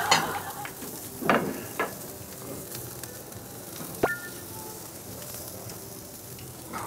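Meat sizzling on a barbecue grill, with a few short knocks and clinks from the cooking utensils.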